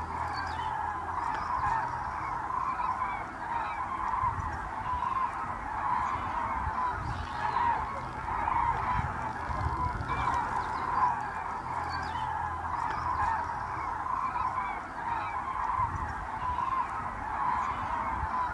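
A large flock of common cranes calling in flight overhead: a dense, continuous chorus of many overlapping calls.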